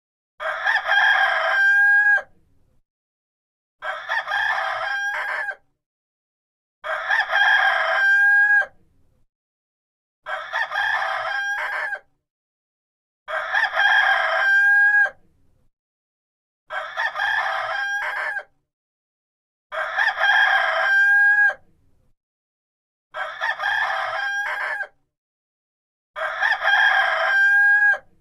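Rooster crowing cock-a-doodle-doo nine times, one crow about every three seconds, alternately louder and softer; each crow ends on a held high note that cuts off sharply.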